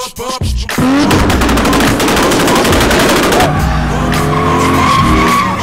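A drifting BMW 3 Series saloon: a fast, sharp crackle of pops, then the engine held at high revs with tyre squeal near the end.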